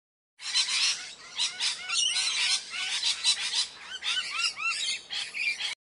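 Many small birds chirping and twittering together, a dense run of quick, arching chirps that starts abruptly about half a second in and cuts off suddenly near the end, like an inserted sound effect.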